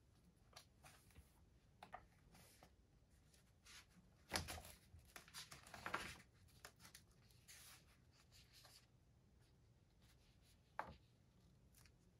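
Pages of a softcover textbook being lifted and turned, with soft paper rustling that is loudest about four to six seconds in. A single sharp tap comes near the end.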